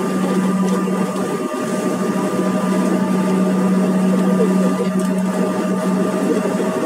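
Cabin noise of a Bombardier CRJ1000 taxiing: a steady, loud hum and whine from its rear-mounted GE CF34 turbofan engines at taxi power, holding one low tone with a few fainter higher ones above it.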